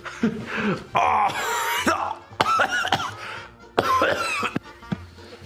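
A man coughing and making short strained vocal noises, several bursts in a row, while bearing another man's weight on his back.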